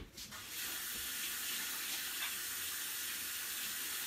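Water running from a tap into a sink: a steady rush that starts about half a second in and keeps going without change.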